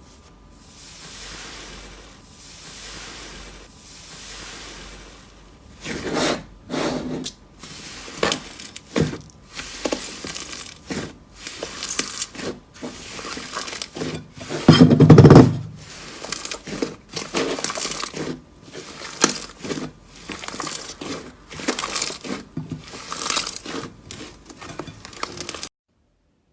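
Slime being handled: a few soft squishing swells, then a long run of crunchy crackling and popping as it is pressed and squeezed, with one heavy, loud squish about halfway through. The sound cuts off abruptly near the end.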